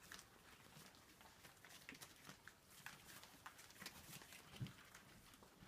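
Faint eating sounds of a litter of cocker spaniel puppies feeding together from a round dish: scattered small clicks and lapping, with a soft thump about four and a half seconds in.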